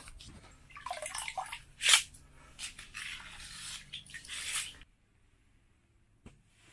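Ice scoop skimming slush and water out of an ice-fishing hole: irregular wet sloshing and splashing, with a sharper splash about two seconds in. It stops abruptly about five seconds in.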